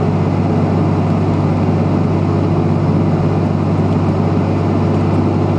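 Steady, loud hum of a jet airliner's engines and airflow, heard inside the passenger cabin as the plane taxis after landing.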